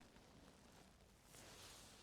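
Near silence, with a faint soft rustling hiss that swells a little just past halfway.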